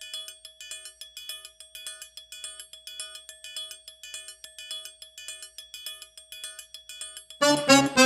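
Background music intro: a soft pattern of short, chime-like struck notes repeating in a steady rhythm. Near the end, louder full-band music comes in suddenly.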